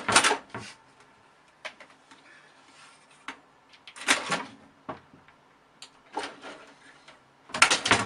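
A cat scrabbling and knocking against a plastic computer tower as it jumps and claws at it: four short, clattery bursts a couple of seconds apart, with a few single clicks between.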